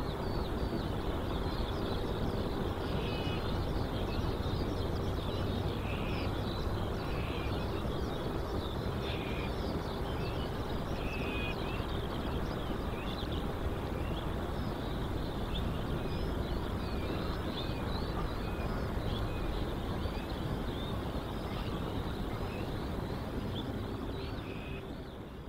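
Steady outdoor night background: a low rumble with a constant hum, and many short high chirps scattered through it. It fades out near the end.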